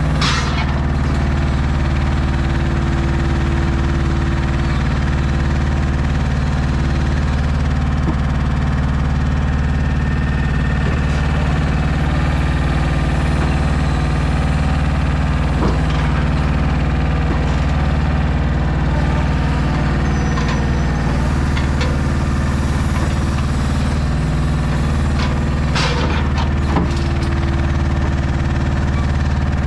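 DAF XF 480 truck's diesel engine running steadily, driving the hydraulics of its truck-mounted Kennis loader crane while the crane works. A few short knocks come from the crane and its stone clamp: one at the start, one about halfway through, and a cluster a few seconds before the end.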